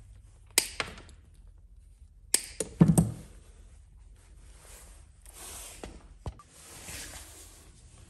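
Sharp clicks and knocks from wires and small parts being handled on a workbench, the loudest a quick cluster of knocks with a dull thump about three seconds in, then soft rustling.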